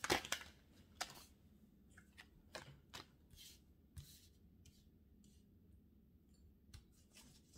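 Tarot cards being handled and dealt onto a wooden table: a quick cluster of card snaps at the start, then scattered light taps and slides as single cards are laid down.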